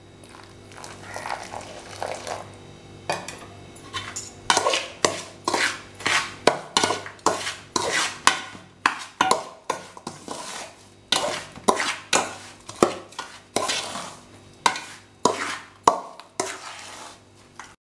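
Metal spoon stirring and scraping a rava, sugar and milk mixture in a stainless steel pot, clinking against the pot about twice a second after a quieter first few seconds. The warm milk is being worked into the roasted rava to bind it for laddus.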